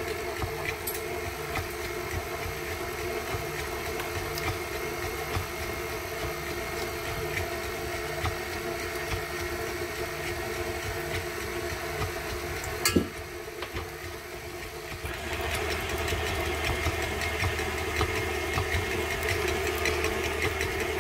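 KitchenAid Artisan stand mixer running steadily with its wire whisk beating a thick cream mixture. About two-thirds of the way through there is a single sharp knock, and the mixer then runs louder for the last few seconds.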